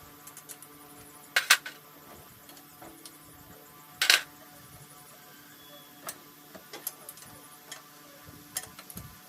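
A few sharp knocks or clinks, two loud ones about a second and a half and four seconds in, then several fainter clicks, over a faint steady hum.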